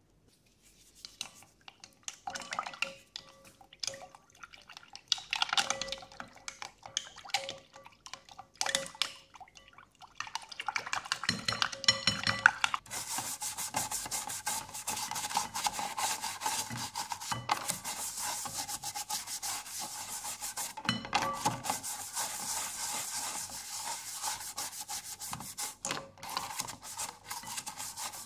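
Toothbrush bristles scrubbing the casing of a 1979 National Panasonic mini TV in soapy water. Scattered light clicks and water sounds come first. About ten to thirteen seconds in, steady brisk scrubbing takes over.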